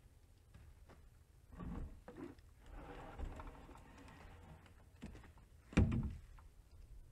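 Handling a long wooden log beam: rustling and a few light knocks, then a heavy wooden thud just under six seconds in as the beam comes down on the ground, under a low steady rumble.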